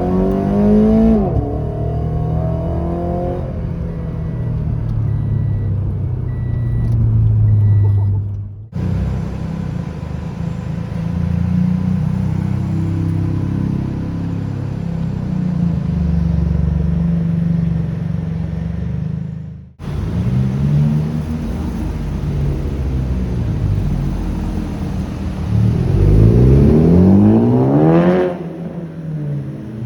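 Car engines driving past on a city street. One passes with a falling pitch at the start, and another accelerates hard with a rising pitch near the end. The sound breaks off abruptly twice.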